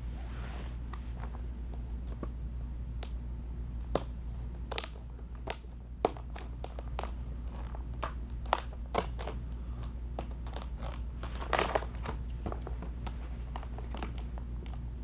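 Model train box and its packaging being opened and handled: scattered crinkles and sharp clicks, with a short louder rustle about eleven and a half seconds in, over a steady low hum.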